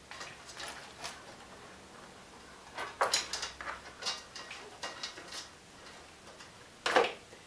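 Scattered light clicks, knocks and rustles of wiring and parts being handled, with a sharper knock about three seconds in and another near the end.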